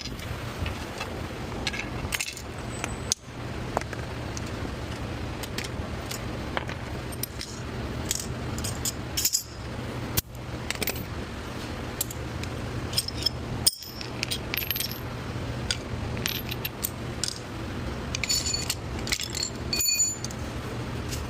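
Metal hand tools and small metal parts clinking and rattling in scattered, irregular strikes, some ringing briefly, over a steady low hum.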